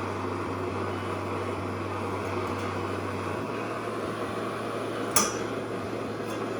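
Steady hum and hiss of running machinery, with a low hum that drops away about three and a half seconds in, and a single sharp click about five seconds in.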